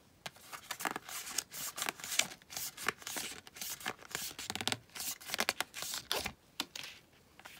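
Hands rustling and scraping a crochet chart keeper and its paper label band as it is turned over and opened: a busy run of small crackles, scratches and clicks.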